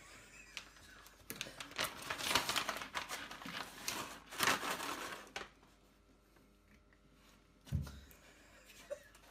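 A cat rummaging inside a kitchen cabinet: a few seconds of uneven crinkling and rustling, as of plastic, then a soft thump near the end.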